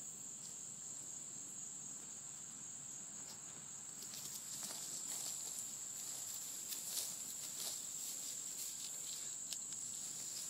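A steady, high-pitched drone of insects throughout, with rustling and scuffing in the grass from about four seconds in as a Canaan Dog puppy tussles with its leash and rolls on the lawn.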